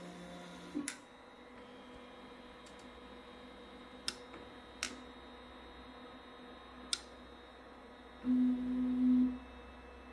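Artillery Sidewinder X2 3D printer during probe calibration: its stepper motors whine briefly as the toolhead moves, then the bed probe clicks sharply three times. About 8 seconds in the steppers whine louder for about a second as the axes move again, over a steady fan hum.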